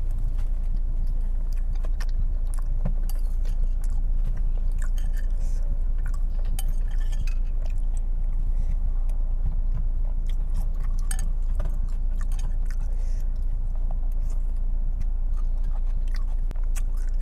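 Close chewing of bakso, Indonesian meatball soup, with many small clicks of a metal spoon against the bowl, over a steady low hum.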